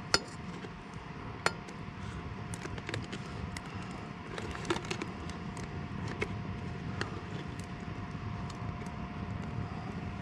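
Oil frying in an aluminium pressure-cooker pot over a fire: a steady low rush with scattered sharp pops and clicks, the loudest two near the start.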